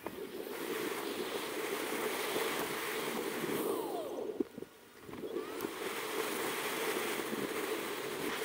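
Steady rushing noise of wind on the microphone and street traffic heard while riding. It drops out briefly a little after four seconds in.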